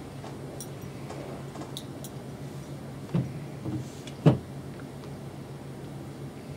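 Quiet room with a steady low hum, a few light ticks, and two dull knocks about a second apart near the middle, the second louder.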